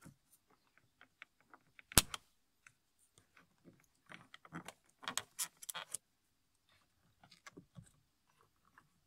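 Plastic clicking and scraping as a plastic trim tool pries at the plastic trim panel around the headlight switch on a BMW E46 dashboard, the trim held in by its brackets. One sharp snap about two seconds in is the loudest, with a quick run of clicks around five seconds in.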